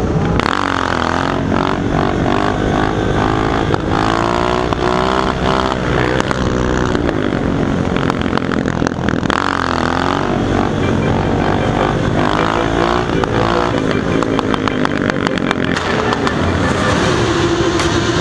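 Motorcycle engines running in a large pack, the engine note repeatedly rising and falling as the bikes accelerate and ease off.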